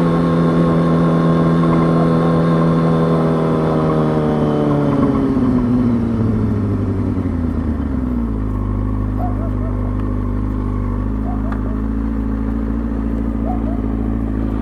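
2003 Kawasaki ZX-6R 636's inline-four engine running at steady revs, then the revs fall away over a few seconds as the bike slows, settling into a steady idle about eight seconds in. A dog barks faintly a few times while it idles.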